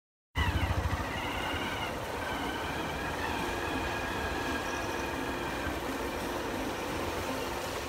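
Road and vehicle noise: a steady rushing with engine rumble that cuts in suddenly a moment after a short silence, with a few higher wavering tones over it in the first seconds.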